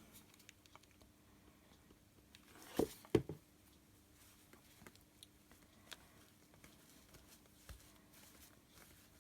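Faint handling noise of paper-flower crafting materials, with small ticks and two soft knocks close together about three seconds in, over a faint steady hum.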